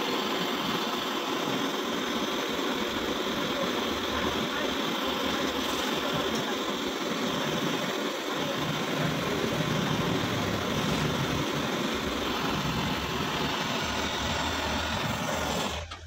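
Gas brazing torch flame hissing steadily while a copper refrigerant-line joint is brazed; the sound cuts off abruptly near the end.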